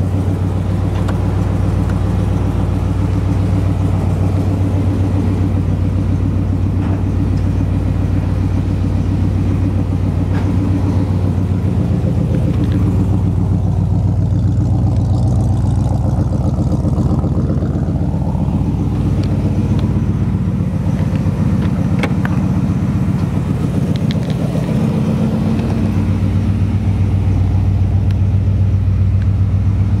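A 350 V8 crate engine idling, heard through headers and a dual exhaust with glass-pack mufflers, with a low, steady note that has a real nice sound to it. The idle pitch rises slightly a couple of times.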